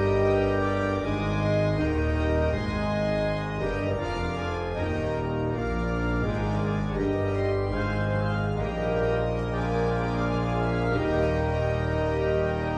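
Organ music: slow sustained chords, each held for a second or two before moving to the next.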